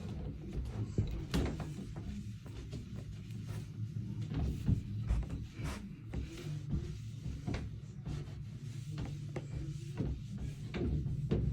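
Wipe rubbing polish over the wood of a mahogany bed's headboard, with scattered light knocks and scrapes of the wooden frame being handled.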